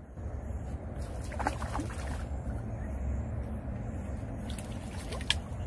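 Small water splashes and sloshing as a fish stirs the pond surface near the float, over a steady low rumble. There are a few short chirps about a second and a half in and a sharp click near the end.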